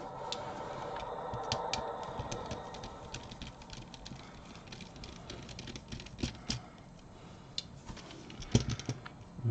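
Light, irregular clicks and taps of small tools and plastic controller parts being handled on a workbench, as screws are undone and the Xbox controller is taken apart. A faint hum fades out over the first few seconds.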